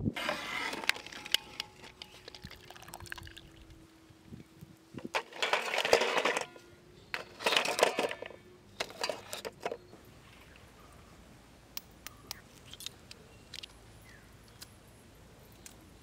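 Boiled eggs lifted out of boiling water with a perforated steel skimmer and tipped into a steel bowl: splashing and dripping water with the eggs knocking on the metal, in a few separate bursts, followed by faint scattered clicks.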